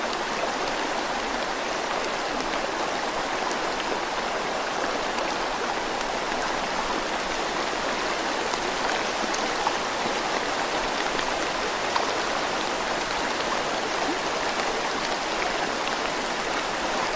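Steady rush of running or falling water, with faint small splashy ticks.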